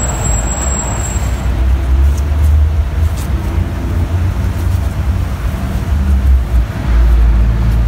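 Loud, steady low outdoor rumble that swells and dips, with a fainter hiss above it.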